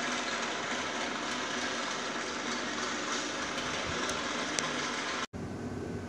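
Steady background noise with a faint hum, dropping out for an instant about five seconds in.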